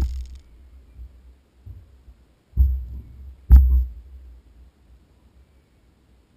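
Steady low rumble broken by heavy thumps: one fading at the start, then two about a second apart near the middle, the second with a sharp click.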